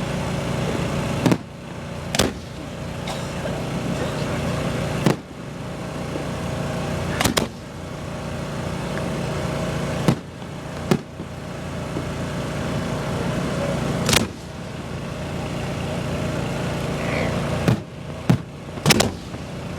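A generator engine runs with a steady hum. About ten sharp fireworks bangs cut through it at uneven gaps, three close together near the end.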